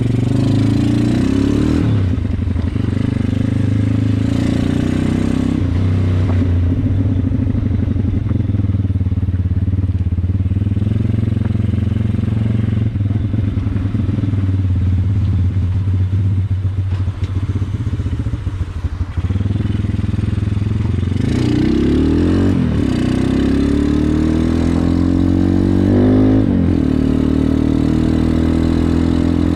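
Yamasaki motorcycle's 140 cc YX single-cylinder four-stroke engine running on the move through a homemade twin-outlet exhaust with a baffle insert. The revs rise and drop in repeated sweeps as it pulls away and changes gear, ease off briefly past the middle, then climb several times near the end.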